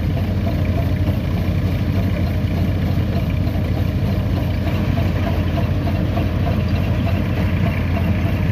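Tractor engine running steadily, driving a groundnut (peanut) thresher as it separates the pods from the vines. The sound is a loud, even machine drone that pulses quickly and evenly and never changes.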